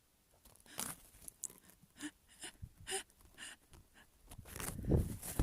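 A person taking a string of short, gasping breaths as a sneeze builds, ending in a loud sneeze near the end.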